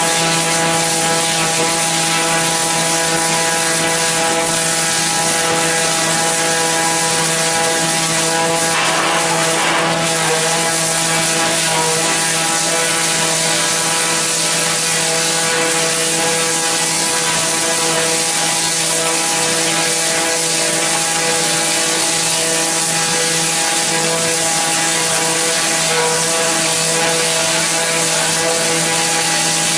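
Knot-removing log debarking machine running steadily: a constant droning hum with a whine over it and a hiss of cutting noise. A brief rougher burst of noise comes about nine seconds in.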